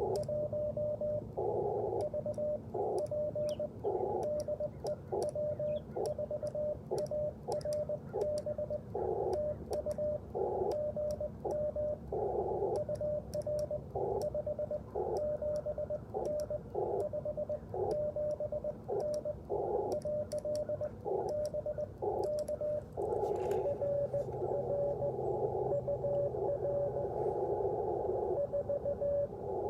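Morse code from an Icom IC-705 transceiver: a single steady-pitched tone keyed in dits and dahs, with short bursts of the receiver's narrow band of hiss between characters. About three quarters of the way through, the hiss stays open for several seconds with the tone broken up inside it.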